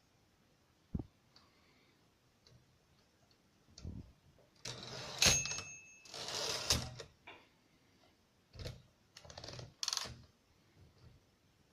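Torpedo 18 manual typewriter being worked: a single knock about a second in, then clattering mechanism noise with a short bell-like ring at about five seconds, followed by a longer sliding clatter, and more bursts of rapid clicking near the end.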